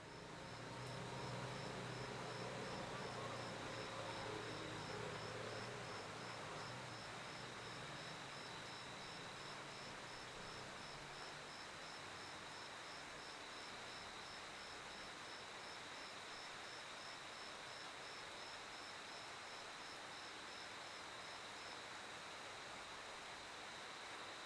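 Crickets chirping: one repeats a short chirp about twice a second until near the end, over a continuous high trill from other insects. A low hum fades away over the first ten seconds or so.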